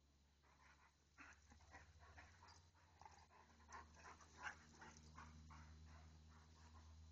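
Great Dane and pit bull playing, making faint, short dog sounds in quick bursts from about a second in.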